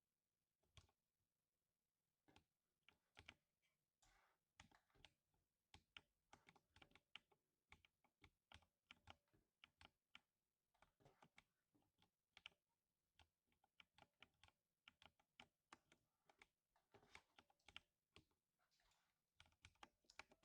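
Typing on a 60% mechanical keyboard with lubed silver linear switches: quiet, irregular keystrokes, several a second, with no pauses longer than a moment.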